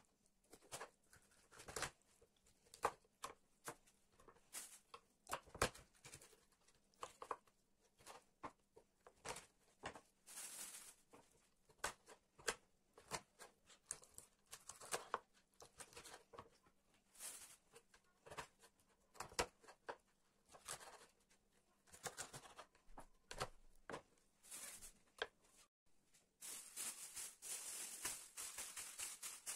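Kitchen knife cutting raw chicken on a wooden cutting board: faint, irregular taps and scrapes of the blade against the board. Near the end, a plastic bag rustles.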